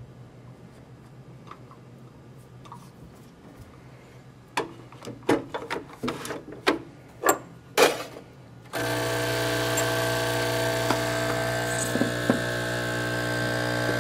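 Clicks and knocks as the portafilter is locked into a Saeco Via Venezia espresso machine and shot glasses are set on its drip tray. About nine seconds in, the machine's vibration pump starts suddenly with a steady buzzing hum as it pulls a double espresso shot.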